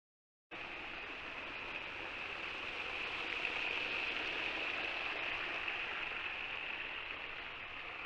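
Waterfall: steady rushing, hissing water. It cuts in abruptly about half a second in, after a moment of silence.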